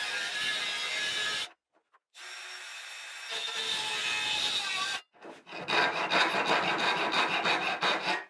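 Handsaw cutting through plywood in a fast run of rasping back-and-forth strokes, several a second, that stops abruptly near the end. Before it come a steadier sound that cuts off, a short pause, and a quieter steady stretch.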